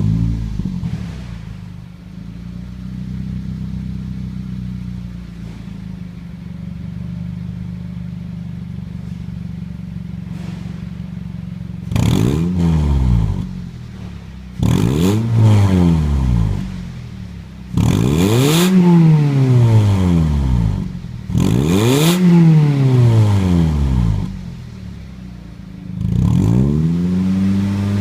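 Toyota Wish's 1.8-litre 1ZZ-FE inline-four, heard through an aftermarket Kakimoto muffler fitted with an inner silencer. It idles steadily, then the throttle is blipped four times, each rev rising and dropping back to idle. Near the end it is revved again and held at a higher speed.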